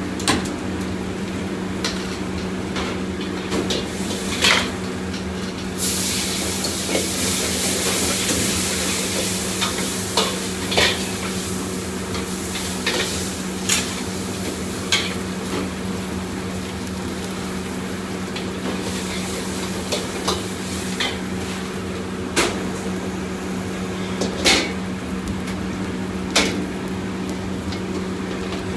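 Stir-frying in a wok: a metal ladle scrapes and clanks against the steel wok again and again as food is tossed over high heat. Hot oil sizzles loudly from about six seconds in for several seconds. A steady low hum runs underneath.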